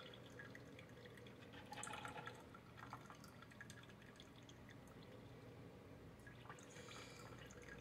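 Faint dripping of coffee from a PowerXL Grind & Go Plus coffee maker into a travel mug as it brews, a few scattered small drips over a low steady hum.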